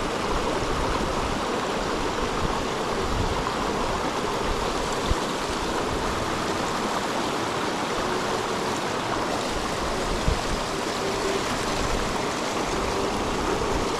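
Small rocky upland burn rushing over stones and little waterfalls: a steady noise of running water, with two brief faint knocks partway through.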